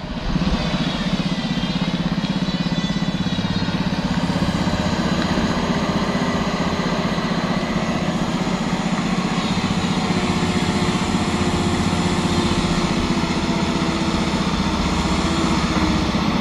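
A vehicle engine running steadily, loud and at an even pitch with a fast firing beat, cutting in abruptly just after the start.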